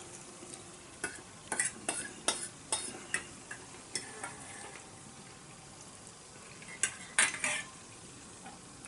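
A fork clinking and scraping against a dish while someone eats: a string of short, sharp clicks in the first few seconds, then a quieter stretch, then another cluster of clicks near the end.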